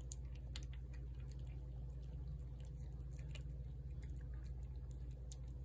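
Cat eating from a plate of cat food: small irregular wet clicks of chewing and licking over a steady low hum.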